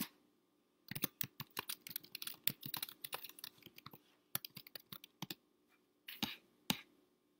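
Typing on a computer keyboard: a quick, uneven run of key clicks for about four seconds, then a few scattered clicks near the end.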